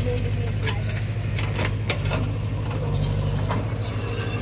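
Heavy diesel engine running steadily, with a handful of sharp metallic clanks and rattles scattered over it.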